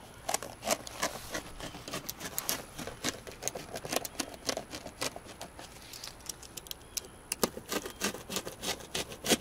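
A blade cutting through a trim piece by hand: a busy run of irregular scratchy clicks and rubbing, thinning out for a couple of seconds in the middle and picking up again near the end.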